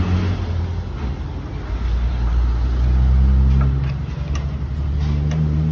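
A low motor rumble that swells and eases, with a few light clicks of parts being handled from about two-thirds of the way in.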